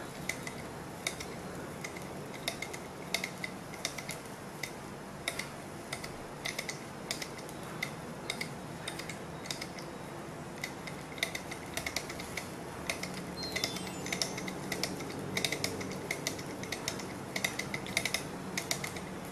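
Small glass-and-metal Stirling engine being turned over by hand to get it running: irregular light metallic clicks and clatter from the flywheel and piston linkage. A faint low hum strengthens about two-thirds of the way in.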